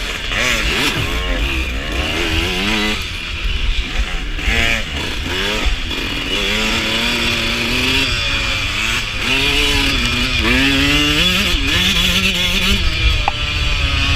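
Suzuki RM125 two-stroke dirt bike engine ridden hard, revving up and down over and over as the pitch climbs and drops with throttle and gear changes, heard from on the bike.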